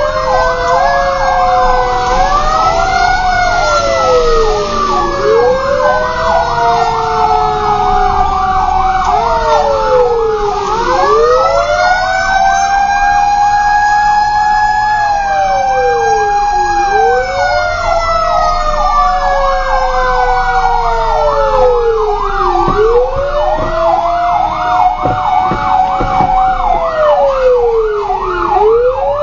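Several electronic emergency sirens sounding at once, heard from inside a responding fire tanker's cab: slow wails that rise and fall every few seconds, layered over a fast, rapidly repeating yelp.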